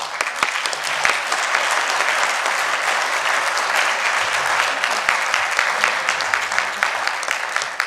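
Audience applauding: many hands clapping in a dense, steady patter that starts at once and dies away at the end.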